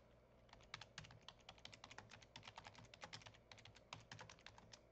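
Faint, rapid typing on a computer keyboard: a quick run of keystrokes that starts about half a second in.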